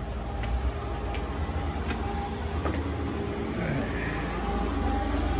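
Footsteps on a wooden deck, a few light knocks under a second apart, over a steady low rumble.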